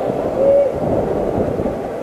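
Steady low wind buffeting and road rumble on the microphone of an action camera riding on an electric scooter over sidewalk paving. A brief high note cuts through about half a second in.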